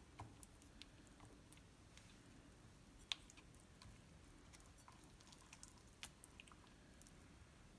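Faint wet squishing of a hand working steamed chicken pieces through a thick marinade in a bowl, with a few faint sharp clicks, the clearest about three seconds in.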